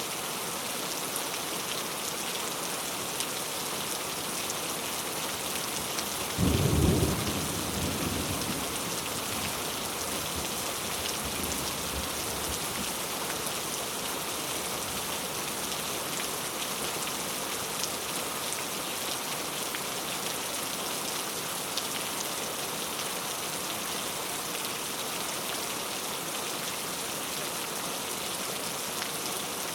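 Steady rain falling, with one clap of thunder about six seconds in: a sudden low boom that rumbles away over the next few seconds.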